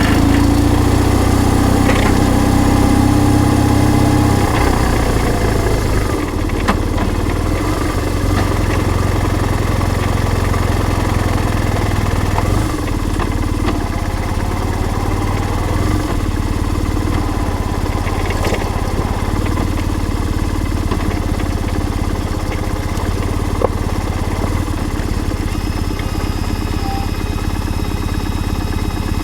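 BMW R1150R's boxer twin engine running steadily under way, its low throb easing off about four seconds in.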